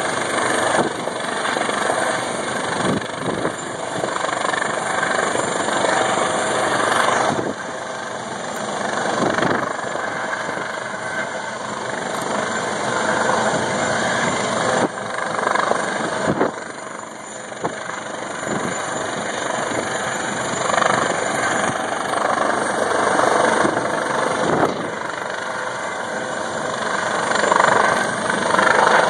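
Helicopter hovering close overhead: a loud, continuous rotor and engine noise that swells and dips in level.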